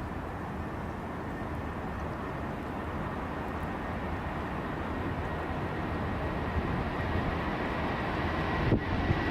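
Boeing 747 jet engines running: a steady rumble with a faint high whine, slowly growing louder.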